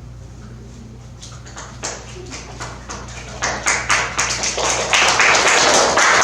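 A class of children clapping: a few scattered claps at first, building to steady applause from about three and a half seconds in.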